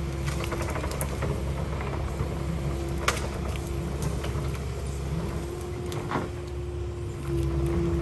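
Kubota KX080 excavator's diesel engine running steadily with a high hydraulic whine, and scattered knocks and clicks of the machine working dirt, the sharpest about three seconds in. It gets louder about seven seconds in.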